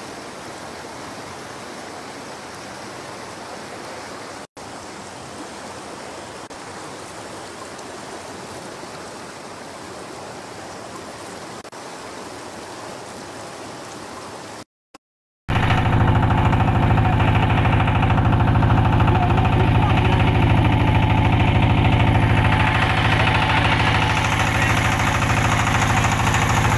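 Floodwater flowing over a road, a steady rush of water. After a brief break about halfway through, a boat's motor takes over, running steadily and much louder with a low hum.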